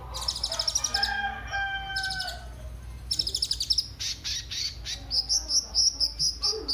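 Kolibri ninja sunbird singing: quick, very high trilled bursts, then a run of separate high notes at about four a second in the second half. A lower, drawn-out call sounds underneath about a second in.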